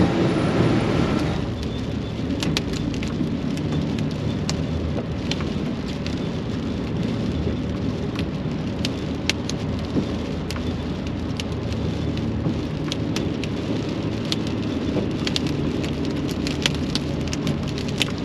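Rock salt pelting the truck's cab and windshield, heard as sharp scattered ticks from about two seconds in. Underneath them are the steady drone of the diesel engine and road noise inside the cab.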